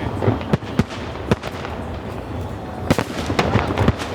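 Aerial fireworks bursting in a display: a rapid string of sharp bangs and crackles over a steady low rumble, with a heavier cluster of reports about three seconds in.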